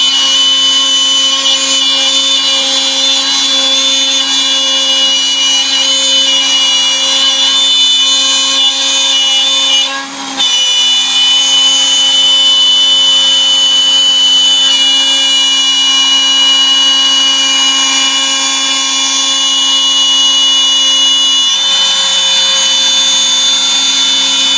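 CNC router spindle running with a steady high whine while cutting wood. It briefly drops away about ten seconds in and then resumes.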